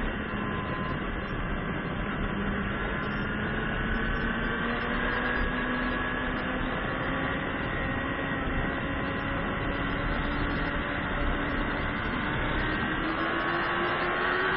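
Racing motorcycle's engine heard on board under steady power, its pitch climbing slowly as the bike drives out onto a straight, with heavy wind rush over the microphone.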